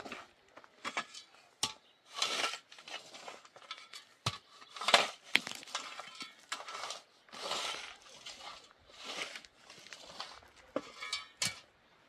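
A shovel scraping and digging into dry, stony soil, stroke after stroke about once a second, with small stones clinking against the metal blade.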